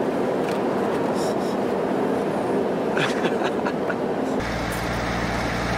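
Steady rumble of a tour bus on the move, heard inside the bus, with a few faint clicks about three seconds in. About four seconds in the sound cuts abruptly to a steady low engine hum.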